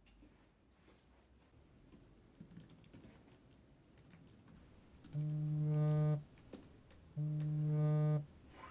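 Faint clicking of a computer keyboard being typed on, then, about five seconds in, a smartphone vibrating against a desk in two steady buzzes of about a second each with a pause between: an incoming call.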